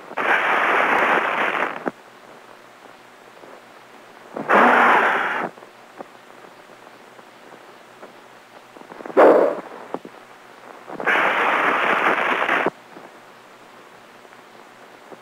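Four bursts of hissing, crackling arc-welding sound from a shielded metal (stick) electrode arc being struck and broken. Each burst starts and stops abruptly and lasts one to two seconds. The third, a little past the middle, is shorter, lower and the loudest.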